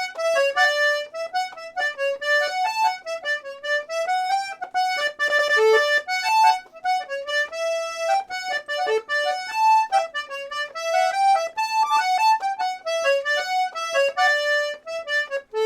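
Serenellini C#/D two-row button accordion playing a tune in quick, short melody notes, sounded on its two middle reeds.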